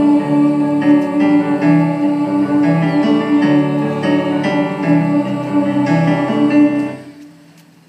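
Small live band, keyboard and guitar, playing the closing instrumental bars of a song with sustained chords and a repeated held note, then dying away about seven seconds in.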